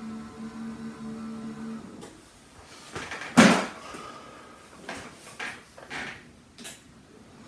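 Electric lift motors in the legs of an UPLIFT sit-stand desk hum steadily as the desktop rises, and stop about two seconds in. A loud knock follows, then several lighter knocks and clicks.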